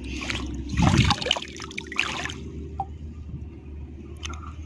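Shallow river water splashing and trickling as someone wades through it, loudest about a second in, then settling to quieter sloshing.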